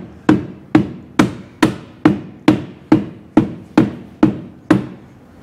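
Steady hand tapping on a 1937 Cord's windshield frame to drive it down over the new glass: about eleven sharp knocks, about two a second, stopping near the end. Each knock sounds solid.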